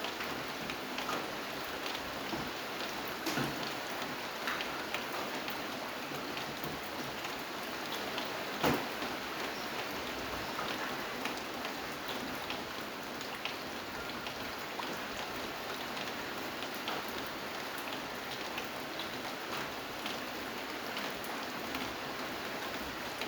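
Steady rain falling, an even hiss with scattered individual drops ticking on a surface; one drop lands louder about a third of the way in.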